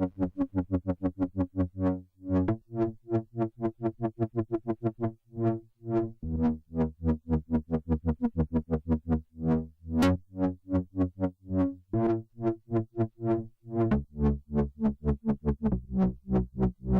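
Elektron Analog Four/Keys analog synthesizer playing a sequenced preset: a fast run of short, plucked notes, about seven a second, over a bass line that shifts pitch every few seconds.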